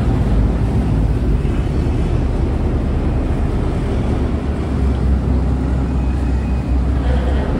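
Boat engine running steadily, a continuous low rumble.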